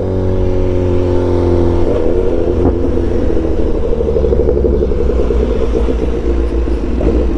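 BMW S1000XR's inline-four engine, fitted with a full exhaust system, running under way: steady revs at first, then from about two seconds in the pitch wavers up and down as the throttle changes.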